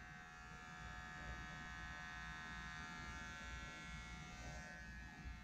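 Manscaped Lawn Mower 2.0 cordless body trimmer running unloaded, a very quiet, steady high-pitched buzz.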